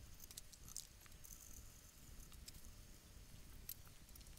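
Faint scratching and light clicks of a hand pick scraping conformal coating off a circuit board, with small knocks of tools handled on a silicone mat.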